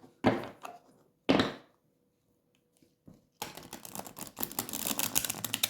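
Two sharp knocks, then after a short pause a fast, dense run of clicking and flapping: a deck of tarot cards being shuffled by hand.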